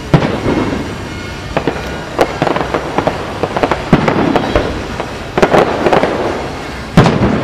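Aerial firework shells bursting: about six sharp booms spaced one to two seconds apart, the loudest near the start and about seven seconds in, with crackling after several of them.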